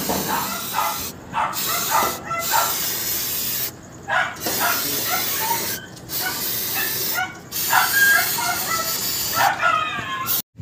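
Aerosol brake cleaner hissing out of the can in a series of long sprays broken by short pauses, washing leaked clutch fluid off the transmission case. Short pitched sounds come and go over the hiss.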